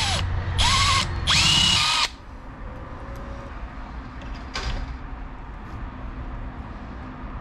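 Handheld power drill with a number 21 bit boring into the end of a 3/8-inch aluminum bar, run in short trigger bursts. The motor whine rises and falls with each burst, and the drilling stops about two seconds in.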